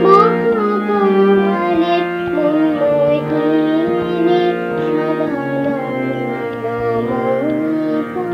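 Shyamasangeet, a Bengali devotional song to Kali, playing as Indian classical-style music: steady held drone notes under a wavering melodic line, with tabla-like drum strokes.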